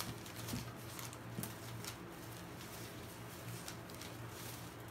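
Cane Corso puppies' paws and claws tapping and scrabbling on a plastic toddler slide and the newspaper under it: scattered light clicks, most in the first two seconds, with softer scuffling near the end.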